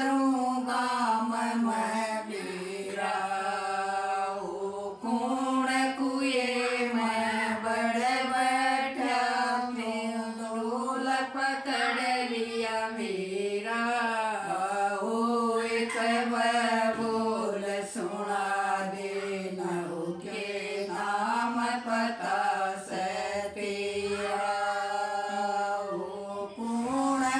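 Women singing a jakdi, a Haryanvi women's folk song, together in one melody line without instruments. The lines are long and drawn out, with held notes that bend up and down.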